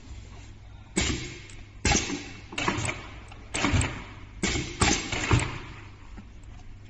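GOA-1580B-7 direct-drive double-needle compound-feed industrial sewing machine stitching leather in about six short runs, each starting abruptly, over a steady low hum.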